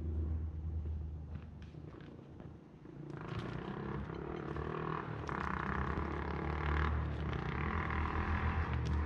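A four-wheeler's engine running with a steady low rumble, growing louder and rougher from about three seconds in.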